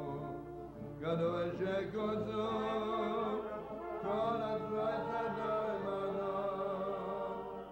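Men's voices chanting a Jewish prayer melody during a synagogue service, with sustained sung notes. The chant eases briefly and picks up again about a second in.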